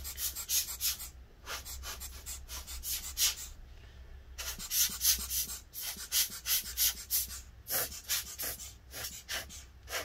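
Air blower puffing short blasts of air in quick succession, several a second with brief pauses, blowing dust out of a laptop heatsink's fins.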